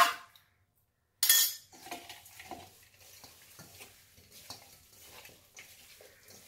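Stainless steel bowl ringing from a sharp metal clink at the start, then a short scraping rush about a second in, followed by faint soft sounds of boiled chicken being mixed by hand with spice masala in the steel bowl.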